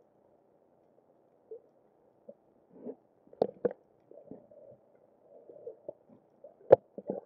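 Muffled underwater sound heard through a camera's waterproof housing: a faint low gurgling with a few sharp clicks or knocks, two close together midway and the loudest near the end.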